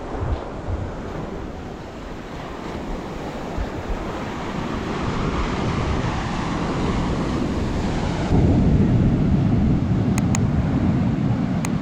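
Sea surf washing onto the beach, with wind buffeting the microphone in a low rumble; the wash grows louder about eight seconds in.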